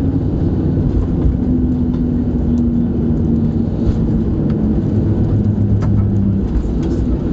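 Cabin noise of a Boeing 737-700 with CFM56-7B engines rolling out on the runway after landing: a loud, steady low rumble with an engine tone that slowly falls in pitch.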